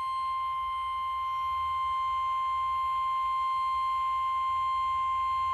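NOAA Weather Radio 1050 Hz warning alarm tone: a single steady high-pitched tone held without a break, over a faint low hum. It is the signal that a weather warning is about to be read, here a high wind warning.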